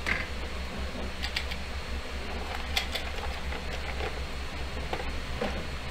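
Low, steady hum with a few faint, scattered clicks.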